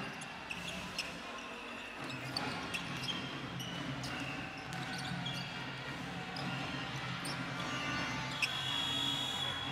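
Live basketball game sound: a ball bouncing on the court as play goes on, with scattered sharp taps over the steady hum of an arena crowd.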